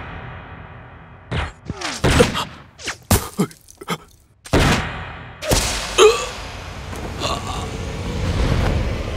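Rifle shots and impact thuds in a film gunfight: a quick run of sharp cracks, a short pause, then two heavier hits, leaving a steady rumble underneath.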